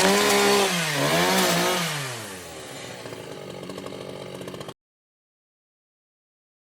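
Chainsaw revving up and down about once a second, then dropping to a steadier, quieter idle that cuts off suddenly.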